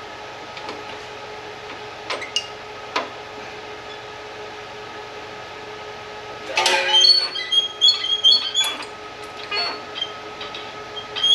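Light metallic clicks, then from about two-thirds through a busy run of ringing metal clinks and rattles as hardware is handled while the lift cable is fitted to the reel mower's drive wheel bracket, over a steady background hum.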